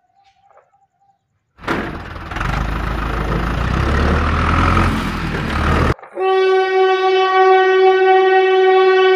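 A rumbling, rattling noise for about four seconds that cuts off abruptly, followed by one long, steady horn blast like a train horn that fades near the end.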